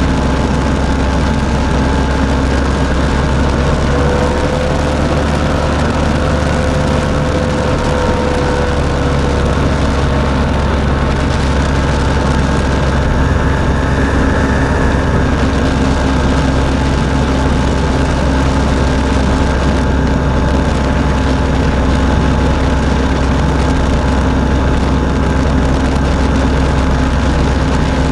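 Hirth 3202 two-stroke twin of an ultralight running steadily in flight, with its pusher propeller and wind rush in the open cockpit. It keeps running after a partial ignition failure, caused by a broken spade terminal on one ignition coil's wire.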